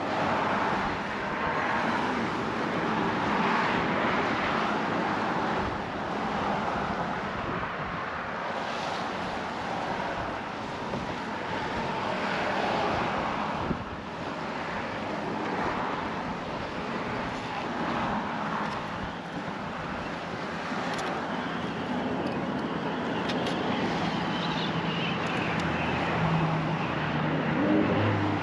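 Road traffic passing on a bridge, heard as a continuous rushing noise over wind. A vehicle's engine hum grows louder near the end.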